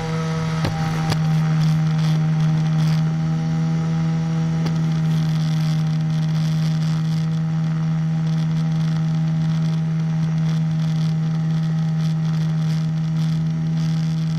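Single-cylinder engine of a powered hang glider running steadily at climb power, a constant propeller drone that grows louder over the first second or two, with wind buffeting and crackling on the microphone.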